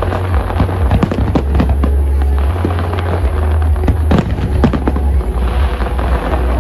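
Fireworks going off: a dense run of sharp bangs and crackles, one after another, over a constant deep rumble.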